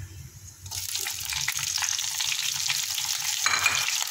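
Halved green chillies dropped into hot oil in a kadhai: a sudden, loud sizzle and crackle of frying sets in about a second in and carries on steadily.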